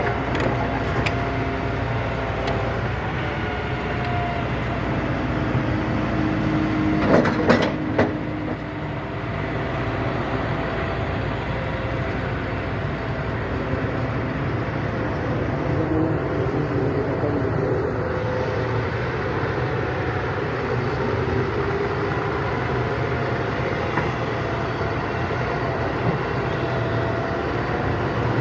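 Hitachi EX200-1 excavator's diesel engine running steadily, with a few sharp clanks about seven to eight seconds in.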